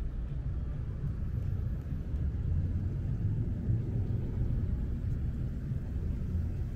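Steady low rumble of city street traffic, with no distinct events standing out.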